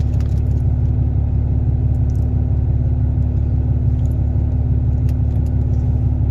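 Steady low rumble with a constant low hum, unchanging throughout, with a few faint clicks over it.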